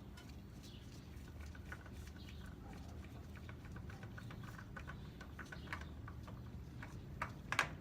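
Faint small clicks and scrapes of a motorcycle oil filter being unscrewed by hand, with a few sharper clicks near the end.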